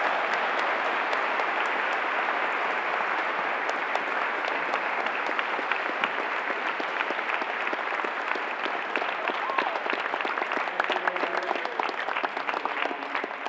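Audience applause, many people clapping at once, gradually thinning into more distinct separate claps and fading near the end.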